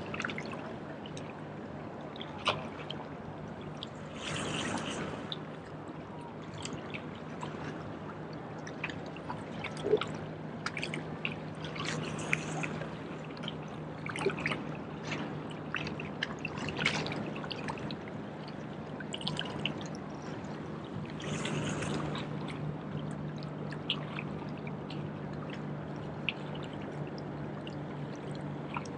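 Small waves lapping and splashing against jetty rocks, with a louder wash about every eight seconds and many small splashes in between. A faint steady low hum runs underneath.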